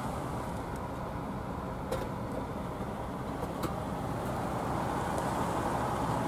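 Steady engine and road rumble of slow-moving traffic that includes fire apparatus, heard from inside a car, with a couple of faint ticks.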